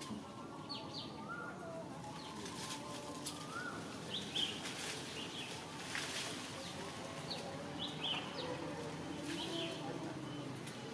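Wild birds calling in woodland: many short high chirps repeat throughout, with a few brief rising notes near the start, over a steady background hiss. Scattered brief clicks or rustles come in between.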